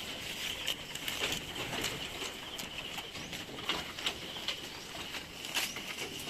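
Rural farm ambience: birds calling over a steady high-pitched buzz, with scattered light clicks and knocks.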